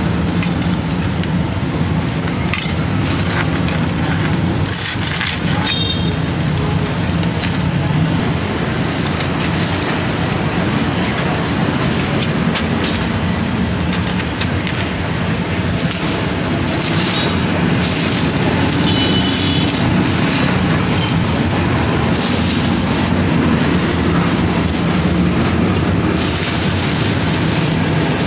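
Steady street traffic noise, engines running, with a low hum that holds throughout and a few short clicks and clatters scattered over it.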